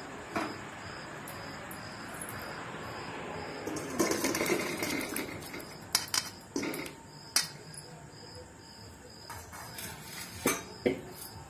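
Curry being tipped from a metal cooking pan into a stainless steel bowl: a wet slosh of the thick gravy about four seconds in, then several sharp metal clanks of pan rim and spatula against the bowl as the pan is scraped out. An insect chirps steadily, about twice a second, in the background.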